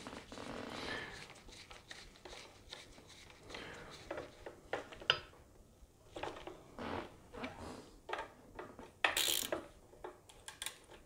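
Small metallic clicks and rubbing as a hex-bit screwdriver tightens the screws of a clamp over a rifle barrel's gas port, with nitrile gloves rubbing on the parts. A brief, louder rub comes about nine seconds in.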